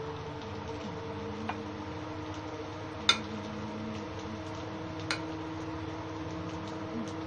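Soybean nuggets deep-frying in hot mustard oil in an iron kadhai: a steady faint sizzle with scattered crackles. Sharp pops of spitting oil come about three and five seconds in, the first the loudest, over a steady low hum.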